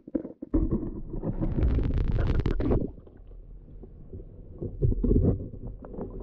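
Action camera lifted out of the water of an ice-fishing hole: a muffled underwater rumble, then about two seconds of loud water rushing and splashing. Lighter knocks and rustling of the camera being handled follow.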